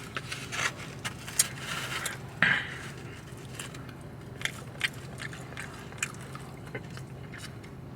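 Close-up eating sounds: chewing and mouth clicks with a few smacks, busiest in the first few seconds, over a steady low hum.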